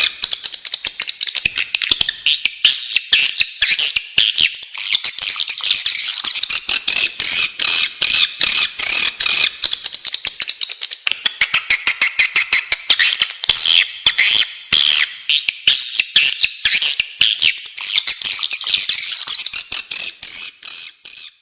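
Swiftlet lure call: a dense chattering of swiftlet clicks and buzzy twitters, many birds at once, of the kind played to draw swiftlets into a nest house. It fades out near the end.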